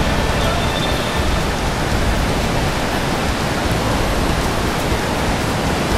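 Steady loud rushing of a fast mountain river, an even roar of water.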